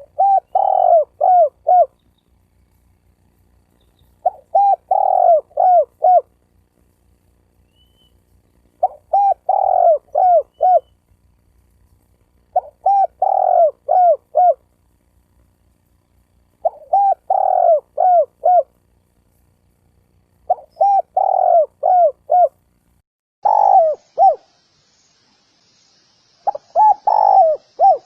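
Spotted dove cooing: a phrase of four or five quick coos repeated about every four seconds, eight phrases in all. A faint high hiss comes in near the end.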